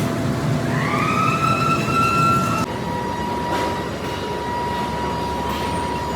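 Machinery whine in a steel mill: the pitch rises over about two seconds and then holds. About two and a half seconds in, it switches abruptly to a steady, lower whine over continuous machine noise.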